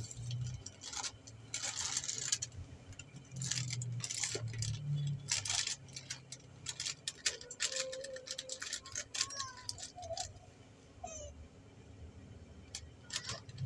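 Crinkling and rustling of a packet of oats and a small sachet being handled and cut open with scissors, in quick irregular bursts. Past the middle come a few short, faint cries from a baby who has just woken.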